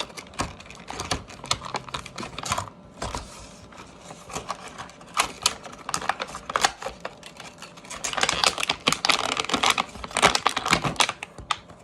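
Toy packaging being handled and opened by hand: a dense, irregular run of clicks and crackles of plastic and cardboard, busiest in a spell about eight to eleven seconds in.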